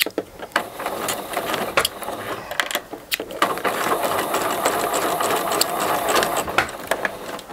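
An electric sewing machine sews a short line of stitches across the end of a plastic zipper. There are a few clicks at first, then the machine runs steadily for about three seconds and stops.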